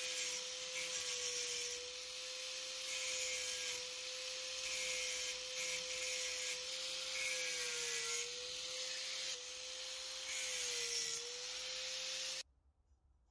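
Electric angle grinder cutting into a crack in a cast iron frame: a steady motor whine over the hiss of the disc on the iron, the pitch sagging briefly twice under load. It cuts off abruptly near the end.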